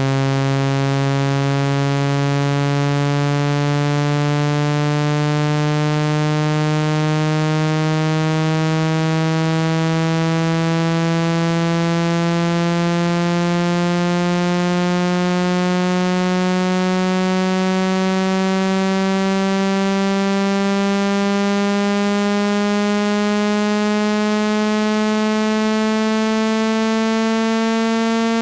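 Synthesized low, buzzy water-eject tone, a single pitch with many overtones that rises slowly and smoothly at constant loudness; a frequency sweep meant to vibrate trapped water out of a phone speaker.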